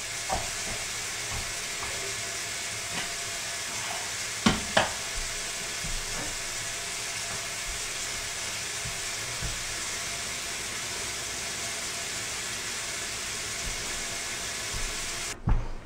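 Steady background hiss with a few light knocks and taps, two louder ones close together about four and a half seconds in, from handling a caulk tube and a paper towel at the countertop. The hiss cuts off suddenly near the end.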